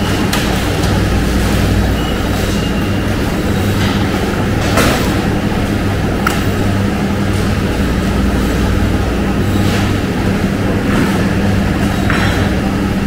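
Steady hum and drone of meat-processing plant machinery and the cutting line's conveyor, with a few sharp clicks and knocks scattered through it.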